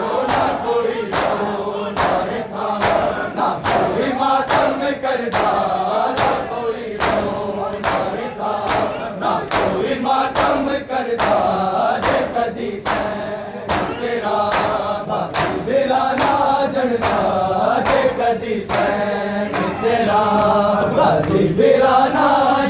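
A large crowd of men chanting a Shia nauha (mourning lament) in chorus, over sharp rhythmic chest-beating slaps of matam, about two a second.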